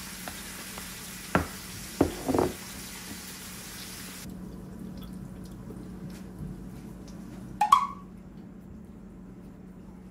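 Kitchen handling sounds over a faint steady hum: a few light clicks of a wooden spoon against a ceramic bowl in the first couple of seconds over a faint hiss that cuts off just before halfway, then one sharp, ringing clink of a dish near the end.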